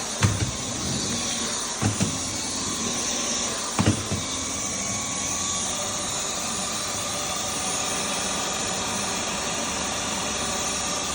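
Vacuum cleaner running steadily, with a few knocks in the first four seconds.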